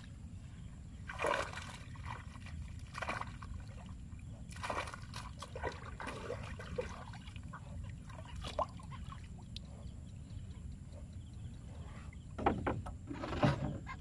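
River water splashing and sloshing as a fish-laden ring net is lifted and shaken in shallow water, in irregular splashes that grow louder near the end, over a steady low rumble.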